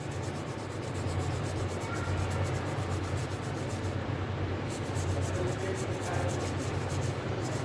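Circuit board being scrubbed clean around a freshly soldered audio IC: steady scratchy rubbing in quick strokes, over a low steady hum.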